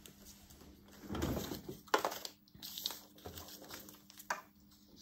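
Crinkling and rustling of waterproof dry-bag fabric and a thin clear plastic sheet being handled and laid flat, with a few light clicks and taps.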